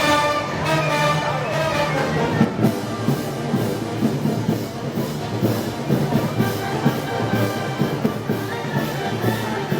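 Festival brass band playing with drums: held brass chords at first, then a steady drum beat from about two and a half seconds in.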